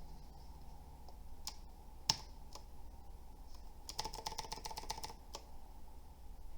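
Keys of a budget tenkeyless mechanical keyboard being typed on. There are a few single key presses, then a quick run of about a dozen keystrokes about four seconds in.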